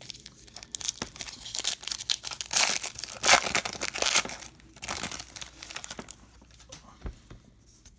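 Foil wrapper of a Topps trading-card pack being torn open and crinkled by hand, a dense crackling that is loudest in the middle and fades to a quieter rustle near the end as the cards come out.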